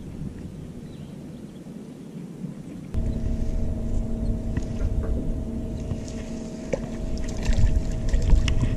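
Wind rumbling on the microphone in an open boat, with a steady low hum setting in about three seconds in. Near the end a hooked crappie splashes at the surface as it is reeled in to the boat.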